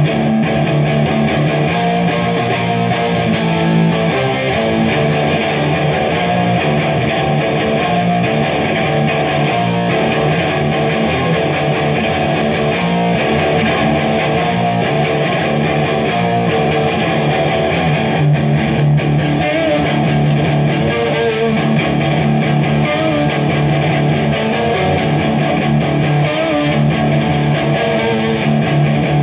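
Electric guitar played through an amplifier, a steady, unbroken run of notes.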